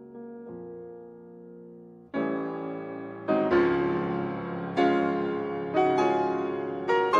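Background piano music: soft held chords, then from about two seconds in louder chords struck roughly once a second, each dying away.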